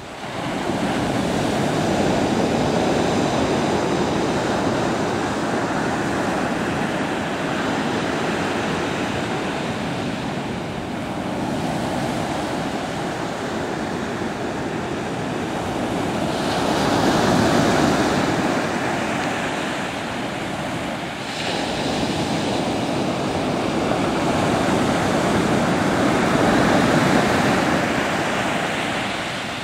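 Pacific Ocean surf breaking and washing onto the beach: a steady rush of water that swells louder several times as waves come in, strongest a few seconds in, about halfway through and again near the end.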